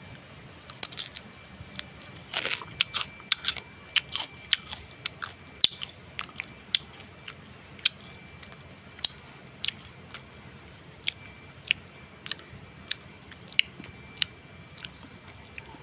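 Close-up crunching and chewing of grilled sun-dried fish, dried until brittle and crispy: a run of sharp, irregular crunches, about two a second.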